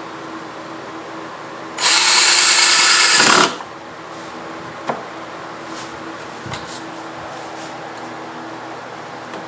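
Power drill boring into wood for about a second and a half, starting about two seconds in and winding down as it stops. This is typical of drilling a pocket hole with a pocket-hole jig. A single sharp click and a couple of faint knocks follow.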